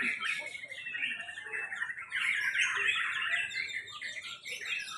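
Many caged white-rumped shamas (murai batu) singing at once in competition, a dense, unbroken tangle of fast chirps, whistles and trills from overlapping birds.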